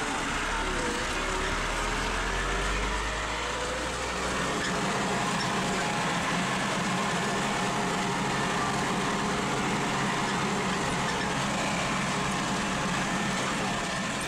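Farm tractor engine running steadily, heard from inside the cab. About four seconds in, the deep low hum drops away and a higher, even drone takes over.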